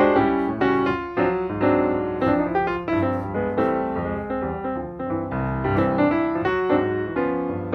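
Background piano music, with several notes sounding together and new notes struck a few times a second.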